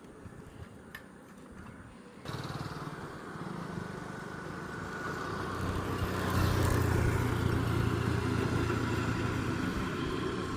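Faint clicks, then about two seconds in a motor vehicle's engine sets in abruptly as a steady low hum. It grows louder until past the middle and then holds steady.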